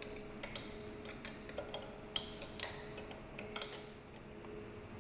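Faint, irregular light metallic clicks of a wrench on the seal-housing nuts as they are cross-tightened, a few to several per second, thinning out near the end.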